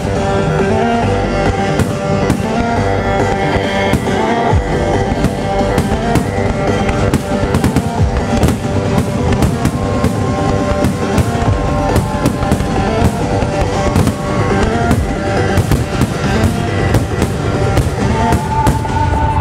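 A trance music soundtrack plays over loudspeakers while fireworks shells crack and burst in quick, irregular succession, often several a second.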